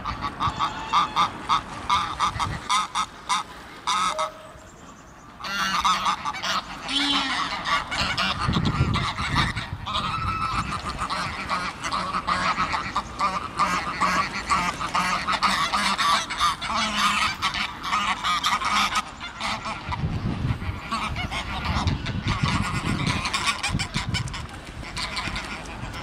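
A flock of greylag and Egyptian geese honking and cackling almost without pause, many rapid calls overlapping, with a short lull about four seconds in.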